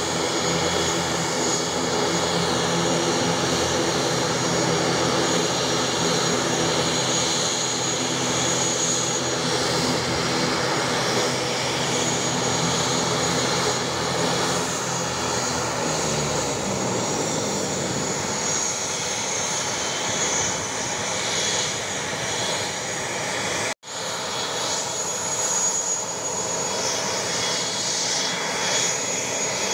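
ATR 72 turboprop engines and propellers running with a steady drone, then winding down in falling pitch a little past halfway as the engines are shut down after taxiing in. A steady hiss and hum remains afterwards, broken by a momentary dropout near the end.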